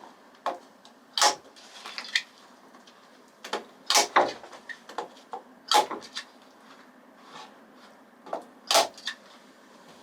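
A string of irregular knocks and clunks from hands-on work, about a dozen sharp hits, with the loudest about a second in, twice around the middle and once near the end.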